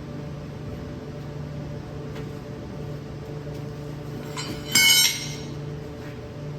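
A short metallic clink that rings briefly, about three-quarters of the way through, after a few faint knocks, over a steady low hum.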